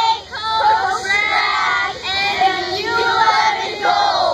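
A group of girls singing together in chorus, many young voices at once.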